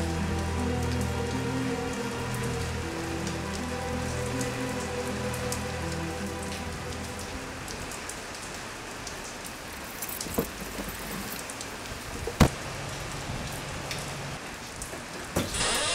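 Steady rain falling on pavement, under low sustained music notes for the first half. About twelve seconds in there is a single sharp knock, and just before the end a different sound with gliding tones cuts in.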